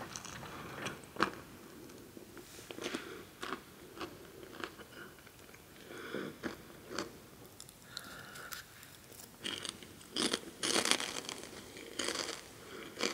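Close-miked biting and chewing of crunchy salty snacks: scattered sharp crunches and crackles, growing denser and louder about ten seconds in.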